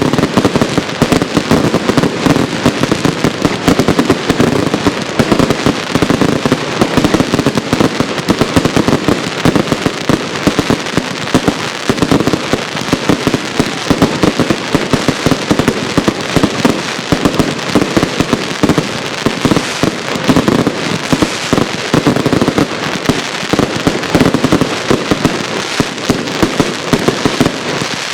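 Consumer firework cakes firing in a dense, continuous barrage of rapid bangs and crackles, with no pause between shots.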